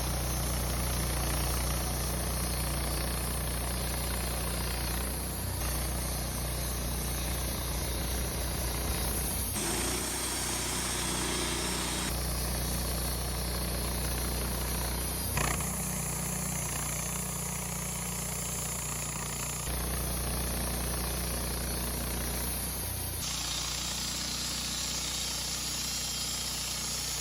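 Wood-Mizer LT15 band sawmill running, its engine droning steadily under load as the blade cuts through pine, in several short edited stretches. A single sharp knock comes about halfway through.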